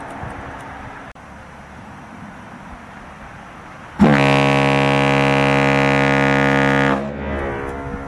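Homemade PVC ship horn giving one steady blast of about three seconds, starting about four seconds in with a brief upward bend in pitch and cutting off sharply.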